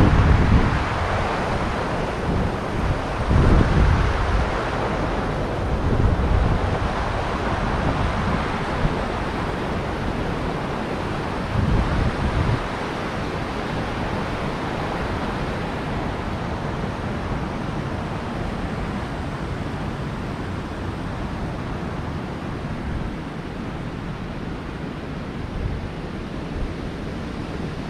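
Wind rushing over the microphone, buffeting in irregular low gusts through the first dozen seconds, then settling into a steadier hiss.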